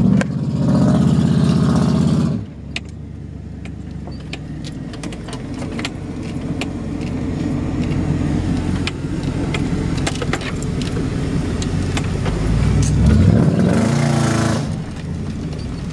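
Pickup truck engine revving hard for about two seconds, then settling to a steady run while the truck drives along a muddy trail. It revs up again a couple of seconds before the end and eases off, with rattles and clicks throughout.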